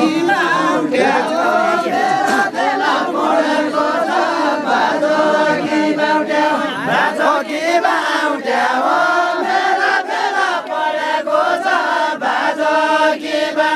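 Group of men singing a Deuda folk song together, voices joined on long held notes.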